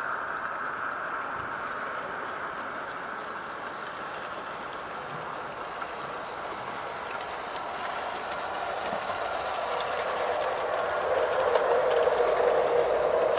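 Gauge 0 (7mm scale) model train, an LNER B1 locomotive hauling Pullman coaches, running along garden-railway track: a steady rumble of wheels on rail. It grows louder about ten seconds in as the coaches pass close by.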